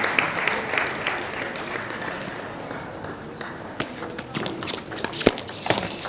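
Scattered applause fading at the start. From about four seconds in comes a doubles table tennis rally: the plastic ball clicks sharply and quickly back and forth off the bats and the table.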